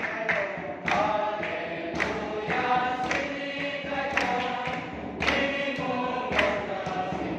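A church congregation singing a hymn together in unison, with a sharp beat about once a second.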